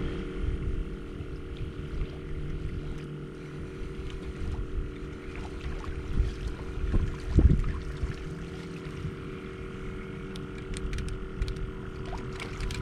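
Wind buffeting the microphone over a steady low hum on a small fishing boat while a hooked fish is fought on rod and reel. There is one louder thump about seven and a half seconds in, and faint clicking near the end as the fish is reeled in.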